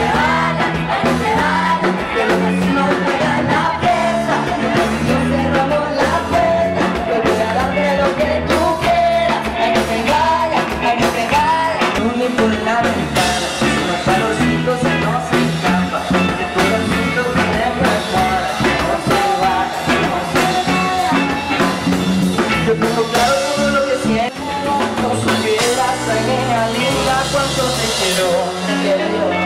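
Band music with a steady beat and bass line, a voice singing the melody over it.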